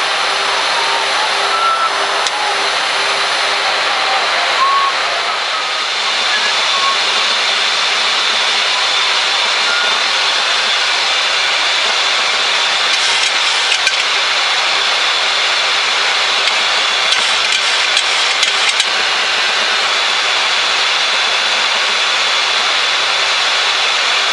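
Boeing 737-800 cockpit background noise in descent: a steady rushing hiss of airflow, with a low steady tone underneath for the first few seconds.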